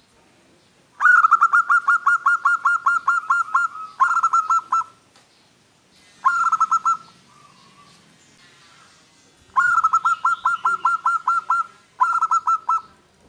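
Zebra dove (perkutut) singing: five bursts of rapid, evenly repeated cooing notes at about six a second. The first burst, about a second in, is the longest at nearly three seconds.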